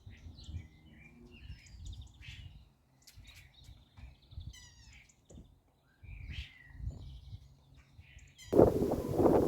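Small birds chirping and twittering in short calls and trills over a faint low rumble. About eight and a half seconds in, loud wind noise on the microphone starts abruptly and drowns them out.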